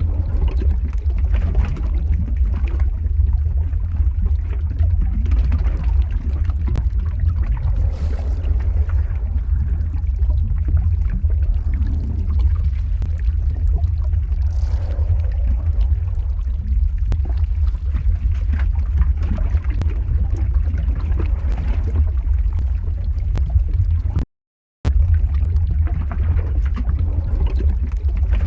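Lava-flow ambience sound effect: a steady deep rumble with faint crackling over it, cutting out to silence for about half a second near the end.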